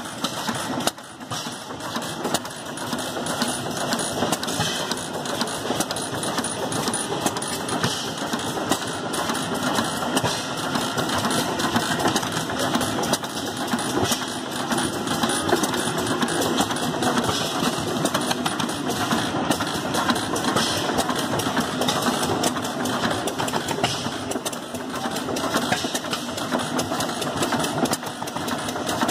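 Antique stationary gas engine with twin flywheels running steadily, a fast, even mechanical clatter.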